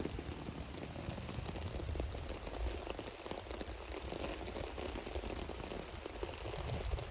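Steady rain falling on the forest trail: an even hiss with faint scattered drop ticks over a low rumble.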